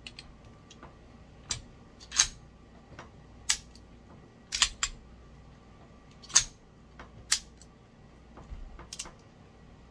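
Sharp metallic clicks and snaps, about eight of them at uneven intervals, from a Star Model 40 .40 S&W pistol being worked through a function check after reassembly.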